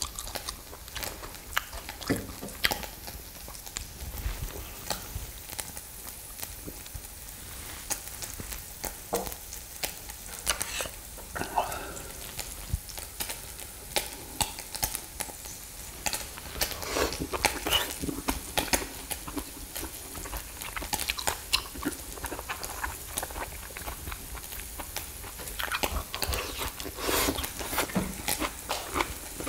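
Eating and grilling close up: beef rib meat sizzling on a mini brazier, with irregular clicks of utensils and chewing, busier in a couple of stretches.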